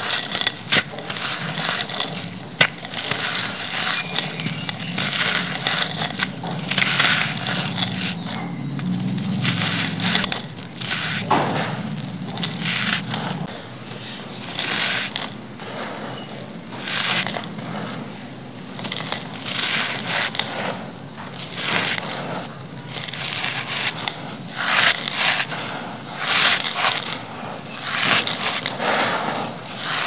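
Dry clay-soil chunks crushed and crumbled by hand, a gritty crunching with loose grit and small pieces falling into a terracotta pot. In the second half the crunches come in separate bursts roughly every one to two seconds.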